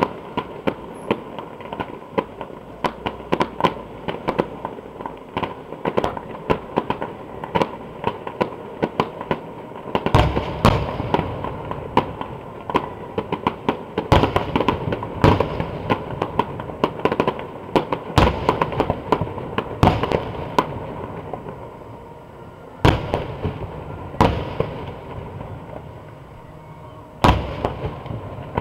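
Fireworks display: a rapid stream of sharp crackling pops for about the first ten seconds, then aerial shells bursting with louder bangs every second or two.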